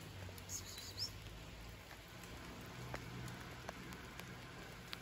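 Light rain: a steady hiss with scattered drops ticking on the surface. A brief high-pitched chirp comes about a second in.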